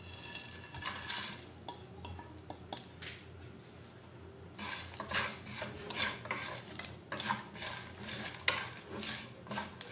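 Whole spices (coriander seeds, fennel, cinnamon sticks, peppercorns) tipped off a plate into a dry frying pan and rattling in. From about halfway through they are stirred with a wooden spatula, in repeated scraping strokes two or three a second, the seeds rattling across the pan as they are dry-roasted.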